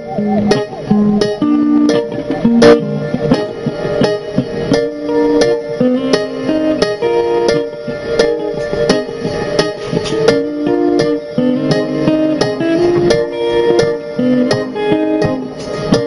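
Electric guitar playing a melodic line of single notes with sharp attacks, changing pitch every fraction of a second.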